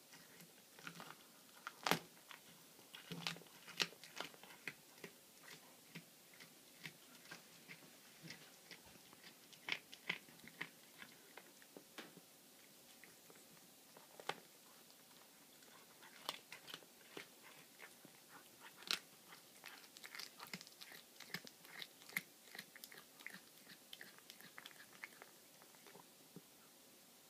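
Young tabby cat chewing a baby rabbit's carcass, crunching through its bones: a steady run of irregular sharp crunches and clicks, the loudest about two seconds in and again near nineteen seconds in.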